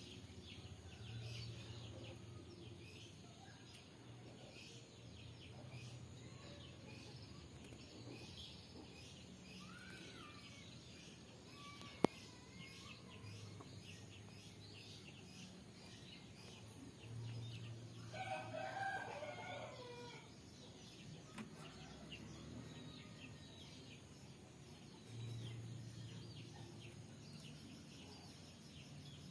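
A rooster crowing once, about two-thirds of the way through, a call of about two seconds that falls at the end. It sits over a faint, continuous chirping background, with one sharp click a little before the middle.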